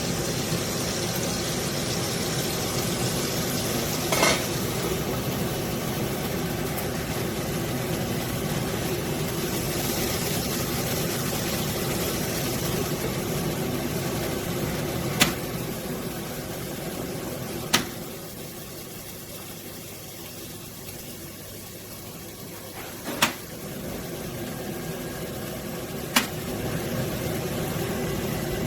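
Kitchen extractor hood fan running with a steady rushing noise, broken by several sharp clicks. After one click about 18 seconds in it runs quieter, and it picks up again after another click a few seconds later, as if its speed setting were being changed.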